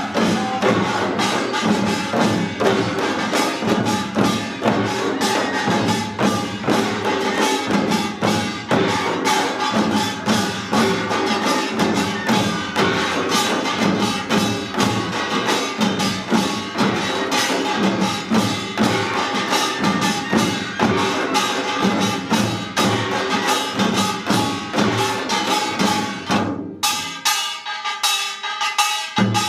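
Korean pungmul percussion ensemble playing pangut: janggu hourglass drums, buk barrel drums and small gongs beating a fast, dense rhythm. Near the end the low drums fall away for about two seconds, leaving lighter strikes, then the full ensemble comes back in.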